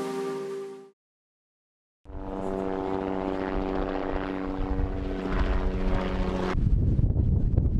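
Background music fading out, then about a second of silence, then a helicopter flying overhead: a steady engine drone with rotor noise. About six and a half seconds in it cuts abruptly to a low, gusty rumble.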